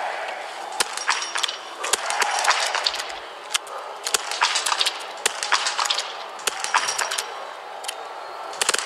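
Several small-bore .22 biathlon rifles firing single shots at uneven intervals, sharp cracks from different shooting lanes overlapping one another, over steady crowd noise.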